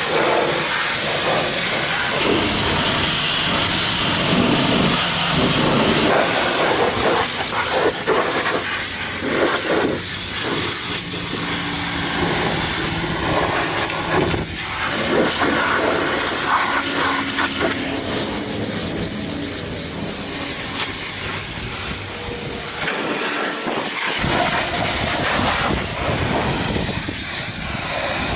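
Pressure washer spraying water onto a muddy truck: a steady, loud hiss of spray whose tone changes abruptly a few times.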